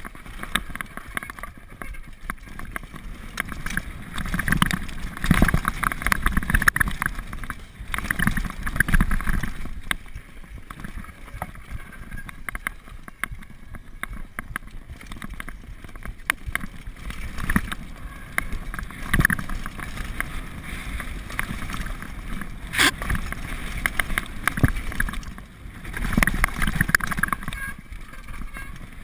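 Downhill mountain bike running fast over a rocky gravel trail, heard through an action camera: tyres crunching over stones and the bike rattling and clattering in uneven surges, with wind buffeting the microphone. One sharp knock stands out about three-quarters of the way through.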